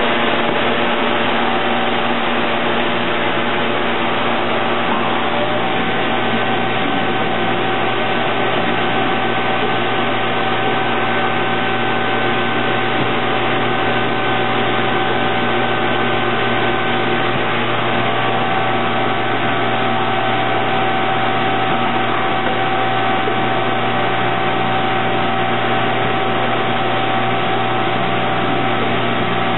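Steady drone of factory machinery around a robotic stamping and stacking cell: an even noise with several held hum tones, unchanging throughout, with no distinct strokes or impacts standing out.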